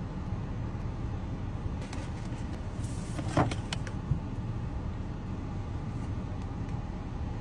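Steady low rumble of a car's cabin, with a short sharp crackle a little past the middle and a single soft knock a moment later.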